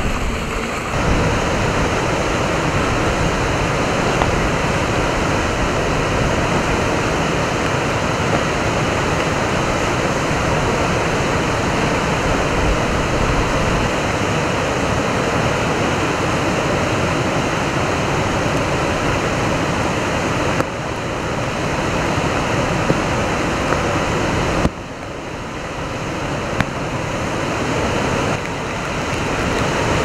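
Typhoon-swollen, muddy river in flood churning over and below a weir: a loud, steady rush of turbulent water. It opens with about a second of wind rumbling on the microphone, and the level drops abruptly a few times near the end.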